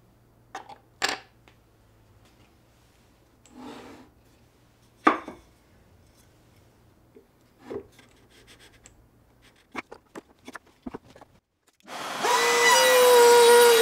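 Light knocks and clicks of wooden parts and a router bit being handled and set on a router table, then about twelve seconds in a trim router under the table switches on and runs at speed with a steady high whine.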